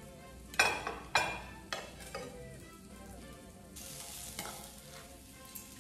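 Metal tongs clattering against a skillet as cooked chicken is lifted out onto a plate: four sharp knocks and scrapes in quick succession. A little under four seconds in, a pan of green beans sizzles briefly as they are served with the tongs.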